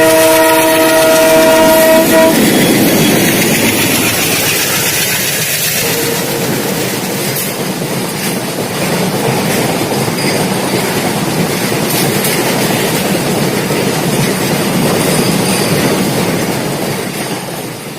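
Train horn sounding a chord of several tones for about two seconds, then a train rolling past with steady wheel noise and clatter over the rail joints.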